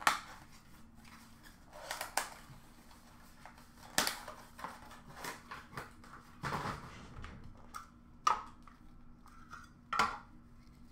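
Clicks and clatters of card packaging and hard clear plastic card cases being handled and set down on a glass display counter, about six sharp knocks spaced a second or two apart with some rustling between.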